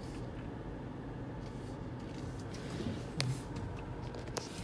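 Car engine running at low speed or idle, heard inside the cabin as a steady low rumble. Two sharp clicks come about three and four seconds in, the first with a brief low thump.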